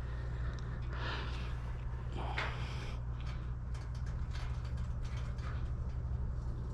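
A few brief scrapes and small clicks of handling, over a steady low hum.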